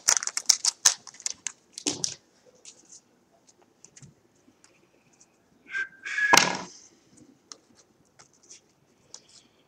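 Foil-wrapped trading card pack and cards being handled: a flurry of light clicks and flicks as the cards come out, then sparse soft ticks as they are sorted, with one louder scuffing slide and a brief squeak a little past the middle.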